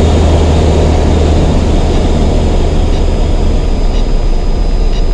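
Cockpit noise of a single-engine Piper Cherokee in flight: a steady low engine and propeller drone under a broad hiss of air noise.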